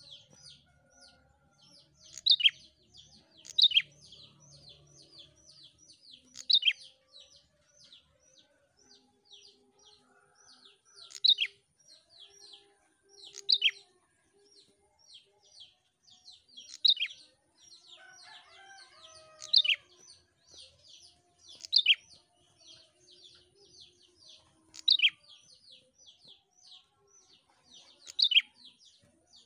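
Caged prenjak songbird calling: a fast, even run of short high chirps, about four a second, with a louder sharp note standing out every two to three seconds.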